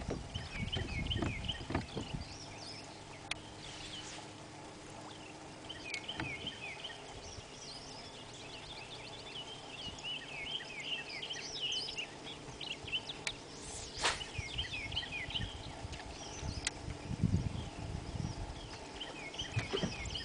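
Many small birds chirping in the dawn chorus, with a few low thumps from the boat's deck near the start and again near the end, and one sharp click about two-thirds of the way through.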